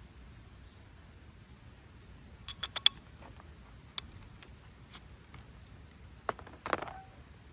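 Camp cookware and utensils clinking: a handful of sharp metal and glass taps, a quick run of three or four about a third of the way in and a louder clatter near the end, over a faint steady high insect drone.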